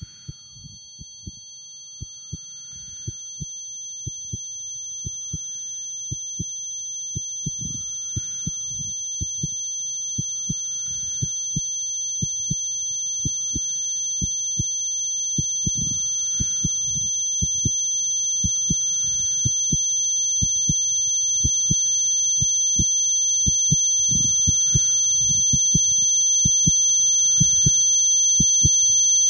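Recreation of tinnitus: several steady high-pitched ringing tones held together, over regular low thumps a few times a second with a faint whoosh about once a second. The whole sound grows steadily louder.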